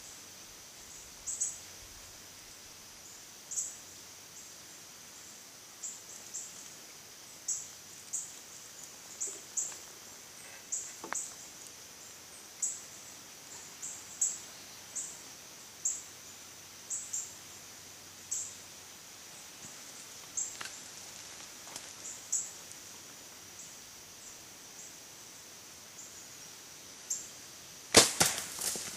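High, short chirps repeat irregularly throughout. About a second before the end, a bow is shot at a whitetail buck: a sudden cluster of several loud cracks and thumps as the arrow is loosed and strikes and the deer bolts.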